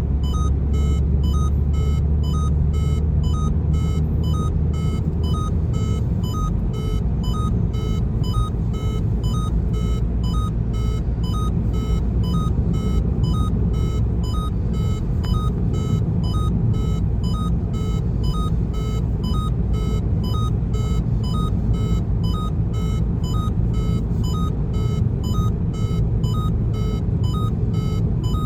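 Peugeot 308 seat belt warning chime beeping over and over in an even run of about two beeps a second, each beep several tones together, signalling an unfastened seat belt. A low rumble from the car runs underneath.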